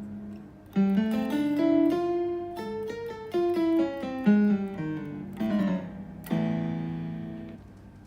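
Roland GR-20 guitar synthesizer played from a guitar: a quick melodic run of single notes with a keyboard-like attack, then a held chord that slowly fades away near the end.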